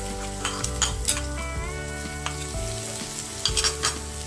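Chopped garlic and green chilies sizzling in hot oil in a wok, with a few sharp clicks about a second in and again near the end.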